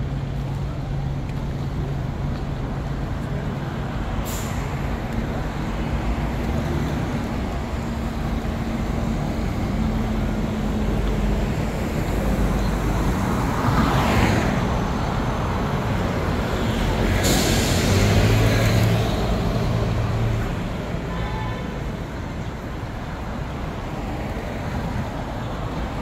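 City street traffic: a heavy engine humming steadily, then two vehicles passing close about halfway through, the second with a sharp hiss.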